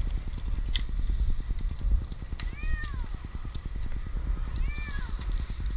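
An 8-month-old kitten stranded up a tree meows twice, about two and a half seconds in and again near the end. Each call rises and then falls in pitch. A steady low rumble runs underneath.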